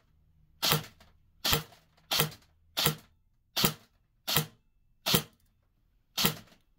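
Double Bell SR25 airsoft electric rifle (AEG) firing single shots in semi-auto through a chronograph during a velocity test string. Eight sharp shots come about three-quarters of a second apart, with a slightly longer pause before the last, and each has a brief ringing tail.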